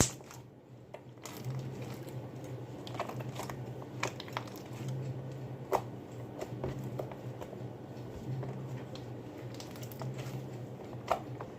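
Scattered light clicks and taps as slime-making containers and utensils are handled and cleared away, over a steady low hum.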